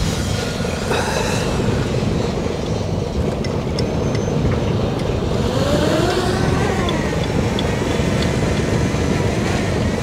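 Fishing vessel's Mitsubishi S6R six-cylinder marine diesel engine running steadily just after start-up, with its water pump working.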